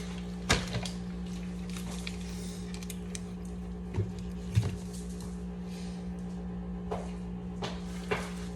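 A few scattered knocks and clicks of household items being handled, over a steady low hum.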